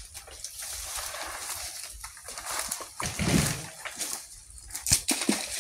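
Dry fallen coconut fronds rustling and crackling as harvested green coconuts are handled on the ground, with a few knocks.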